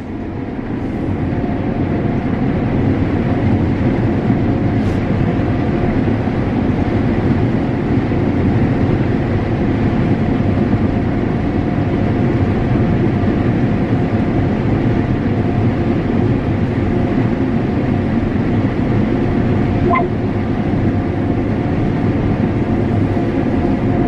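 John Deere S770 combine harvesting corn with a 16-row corn head, heard from inside the cab: a steady low drone of engine and threshing under load, with a faint steady whine above it and a small tick near the end.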